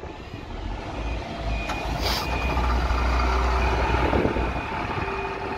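Bus engine running with a heavy low rumble that builds and then eases, a short hiss of air about two seconds in, and a steady tone from about three seconds in.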